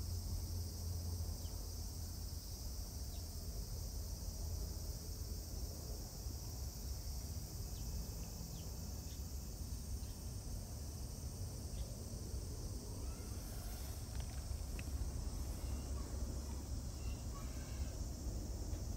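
Steady high-pitched insect chorus, unbroken throughout, over a low steady rumble, with a few faint ticks.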